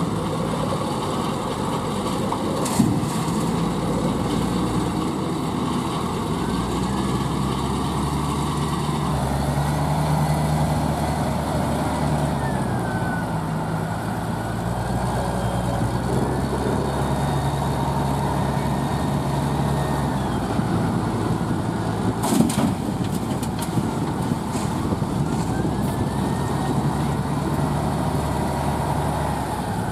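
O&K L45 wheel loader's diesel engine working through a loading cycle, revving up and easing off over several seconds. A whine rises and falls in pitch as the machine drives back and forth. Two sharp knocks, about three seconds in and again near 22 seconds, stand out above the engine.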